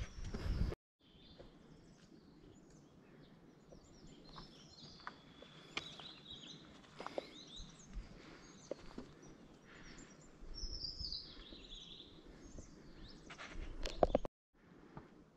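Small birds chirping and calling over faint outdoor ambience, with scattered light clicks. A louder noisy sound cuts off abruptly under a second in, and a brief cluster of louder knocks comes just before another abrupt cut near the end.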